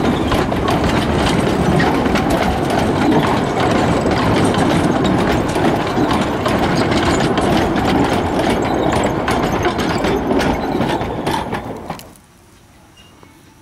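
60 cm narrow-gauge passenger coaches and wooden goods wagons rolling past close by, their wheels and couplings clattering and rattling over the track. The sound cuts off sharply about twelve seconds in, leaving only a faint distant background.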